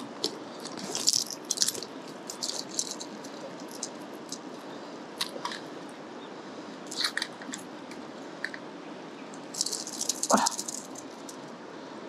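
Mountain stream running steadily, with several short bursts of rattling clicks and clatter and one stronger knock near the end.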